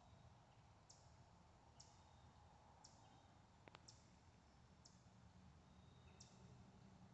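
Near silence, with faint short high-pitched clicks repeating about once a second and one sharper click about halfway through.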